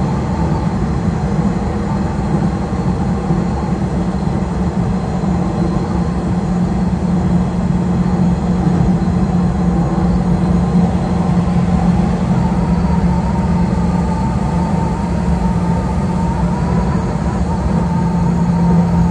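Nishitetsu electric train running at speed, heard from inside just behind the driver's cab: a steady low hum of traction equipment and wheels on rail. A faint whine grows a little louder in the second half.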